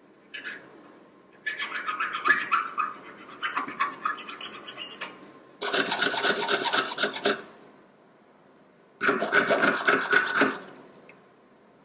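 Jeweler's piercing saw cutting inside the petals of a small sheet-metal flower held on a wooden bench pin: three bursts of quick rasping strokes, each lasting a couple of seconds, with short pauses between.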